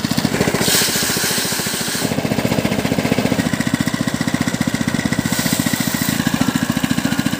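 Small single-cylinder water-pump engine running steadily with a rapid, even chugging beat, driving a rice threshing drum. There are brief bursts of rustling about a second and two seconds in.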